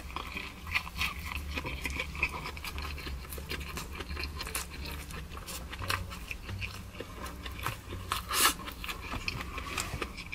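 Close-miked chewing of a big mouthful of burger: irregular wet mouth clicks and squelches over a low steady hum, with one sharper, louder click late on.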